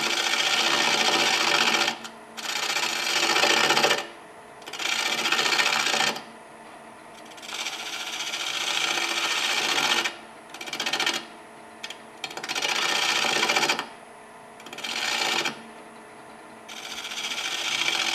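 Lathe gouge cutting the outside of a spinning wood bowl blank: about eight scraping cutting passes of one to two and a half seconds each, with the lathe running quietly in the short gaps between them.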